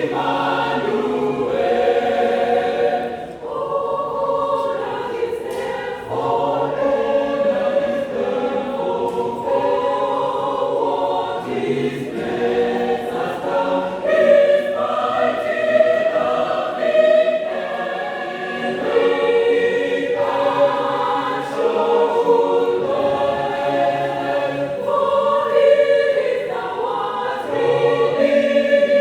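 A mixed choir singing a hymn in several-part harmony.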